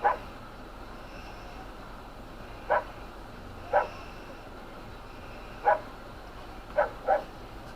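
A dog barking: six short, single barks a second or two apart, the last two in quick succession, over a steady background noise.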